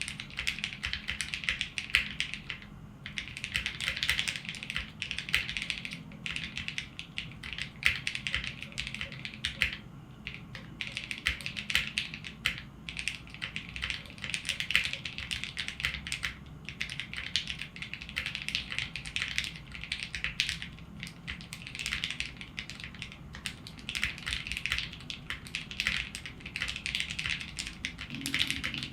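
Continuous typing on a Matrix Lab Corsa custom mechanical keyboard with foam under the plate and Gateron CJ linear switches lubed with Krytox 205g0: a fast run of crisp keystroke clacks, broken by a couple of short pauses.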